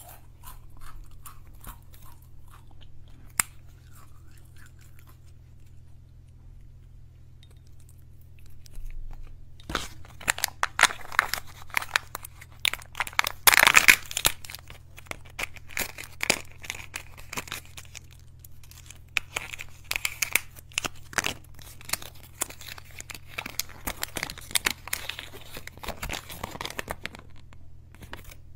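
Kinder Joy egg's foil seal being peeled and its plastic capsule handled: crinkling, crackling and tearing, with only a few small clicks at first, then dense from about a third of the way in and loudest near the middle.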